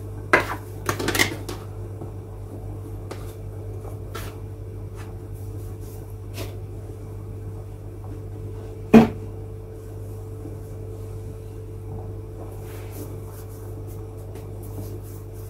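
Taps and soft knocks of hands, dough and utensils on a kitchen worktop, with one louder knock about nine seconds in, over a steady low appliance hum.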